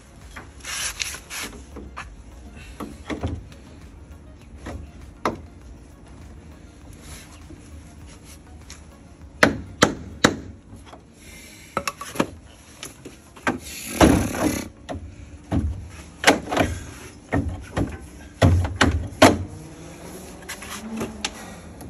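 Irregular knocks, clanks and scraping strokes of hand tools working metal on the pickup bed and its hinge. The longest and loudest scrape comes a little past the middle.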